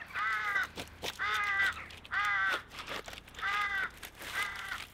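A bird calling over and over: five short, similar calls about a second apart.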